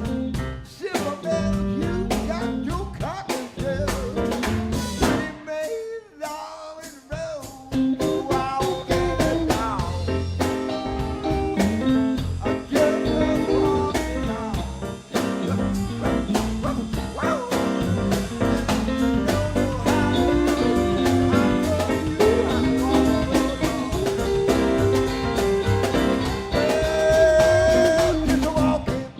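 A blues band of drums, bass, keyboards and guitar playing an instrumental passage; the band thins out for a moment about six seconds in, then comes back in full.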